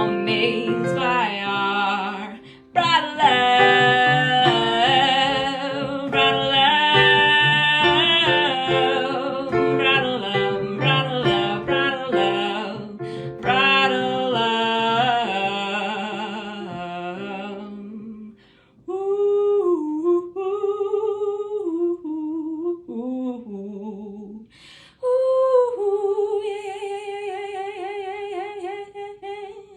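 Worship music with wordless singing for about the first eighteen seconds. After that a single voice hums or sings wordlessly, its pitch sliding up and down in short phrases.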